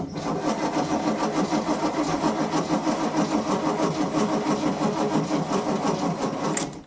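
Boat engine being cranked by its starter motor, a steady rhythmic churning that goes on for several seconds without catching, then cuts off suddenly near the end. It is turning over on a battery that the owner says has something wrong with it.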